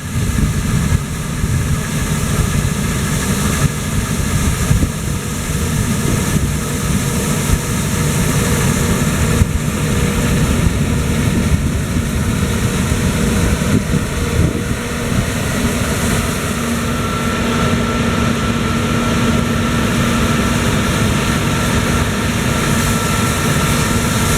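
Claas Tucano 430 combine harvester running steadily, a heavy machine rumble, with a steady higher hum joining about two-thirds of the way in.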